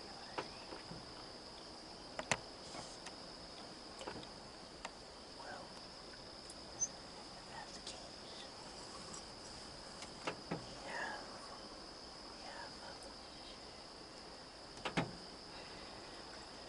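Evening insect chorus: one steady, high, unbroken drone. Scattered faint sharp clicks and snaps sound over it, the sharpest about two seconds in and again near the end.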